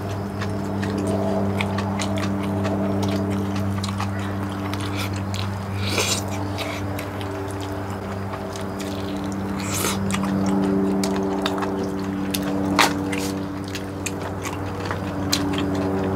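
Close-up eating sounds: wet chewing and slurping of noodles, with short clicks of chopsticks against dishes and a couple of louder slurps. A steady low humming drone sits under them throughout.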